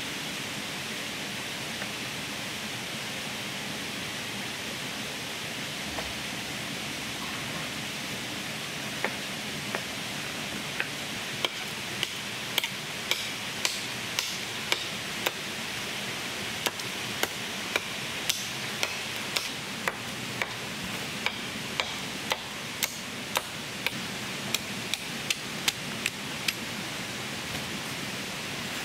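Steady hiss of rain. From about nine seconds in, sharp, short knocks come at an irregular one or two a second.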